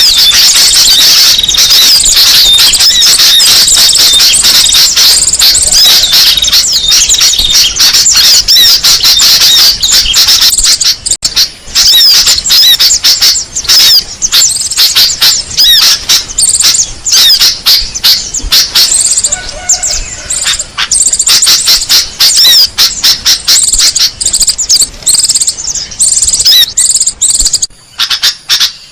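Small birds chirping rapidly and loudly in high-pitched calls: a bird-lure (pikat) recording played to draw in small songbirds. The calls come in an almost unbroken stream at first, then from about eleven seconds in they break into choppier bursts with short gaps.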